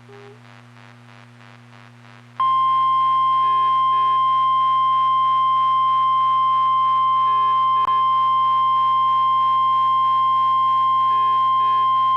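Emergency Alert System attention tone: one loud, steady, single-pitched tone near 1 kHz, starting about two and a half seconds in and holding unbroken. Before it there is only a faint low hum with soft short beeps.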